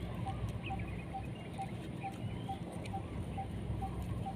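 Puppies eating rice from a plastic plate, with small scattered chewing clicks. A faint high chirp repeats evenly about twice a second throughout.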